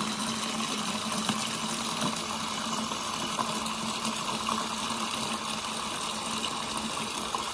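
Water running from a tap in a thin stream into a partly filled plastic bucket: a steady splashing with no change in level.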